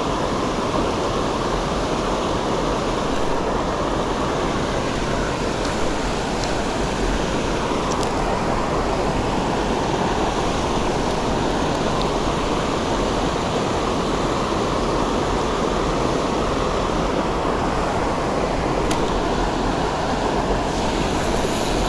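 Fast-flowing creek current rushing steadily, an even wash of water noise.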